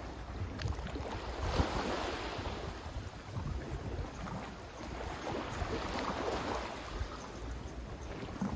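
Sea waves washing onto the shore, swelling and falling every couple of seconds, with wind buffeting the microphone as a low rumble.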